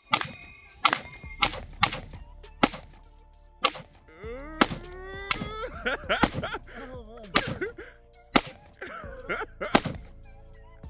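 Q Sugar Weasel AR-15 in 5.56 fired in a rapid string of about a dozen shots, roughly one a second and unevenly spaced. Struck steel star-target plates ring and clang between the shots.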